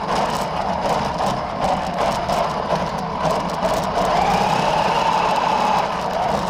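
Toy RC drift car's motor whining, its pitch rising and falling with the throttle, then held steady for a couple of seconds near the end, over the rush of its tyres on the floor.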